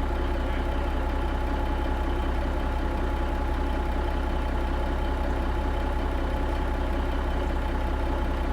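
Kenworth K100 cabover's diesel engine idling steadily through its new 8-inch miter-cut exhaust stack, with a thin steady whine over the low rumble.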